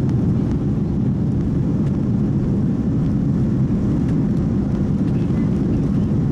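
Steady low cabin rumble inside an Airbus A330-200 as it taxis on the ground: engine hum and the airframe rolling, heard from a seat over the wing.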